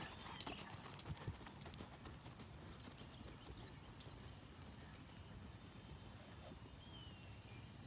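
A horse's hoofbeats on arena dirt, fading as it moves away. The beats are clearest in the first second or so, then sink into faint background noise.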